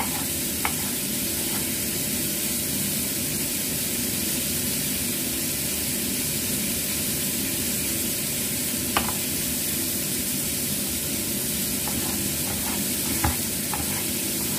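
Pindang fish deep-frying in oil, a steady sizzle. A few sharp knife taps on a wooden cutting board cut through it, one about nine seconds in and a small cluster near the end.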